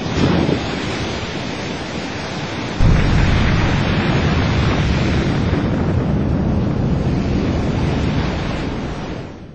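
Large ocean waves crashing: a steady rush of surf with a deep rumble, a heavier crash about three seconds in, fading out near the end.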